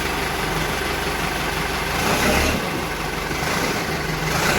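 Escorts DigMax-II backhoe loader's diesel engine idling steadily, swelling briefly about two seconds in.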